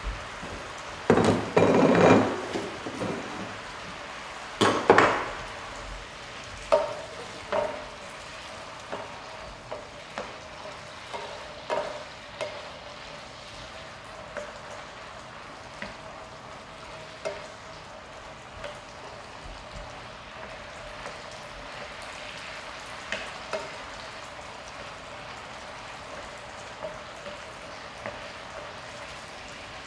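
Chicken frying in bacon grease in an electric skillet, a steady sizzle, with a spoon stirring and knocking against the pan. A few louder clatters of kitchenware come in the first five seconds.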